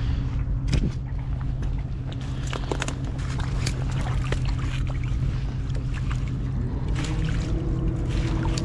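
Low, steady drone of a ship's or boat's engine across the harbour water, rising slightly in pitch about seven seconds in. Scattered light clicks and knocks come from a mesh keepnet being handled in the shallows.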